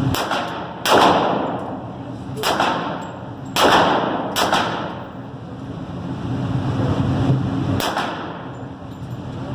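Gunshots at a shooting range: about six single shots, irregularly spaced, each ringing out briefly.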